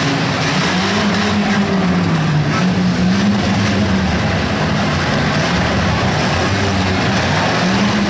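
Demolition derby cars' engines running and revving, the pitch of one rising and falling repeatedly over a constant loud din of several engines.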